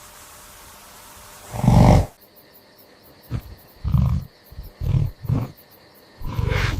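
Short, low growl-like animal sounds, about six of them with gaps between, the first and loudest about two seconds in, after a steady hiss that stops there.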